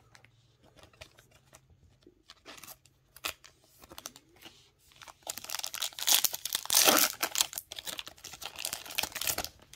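Foil wrapper of a Topps Finest trading-card pack being torn open and crinkling, starting about five seconds in, after a few light handling clicks.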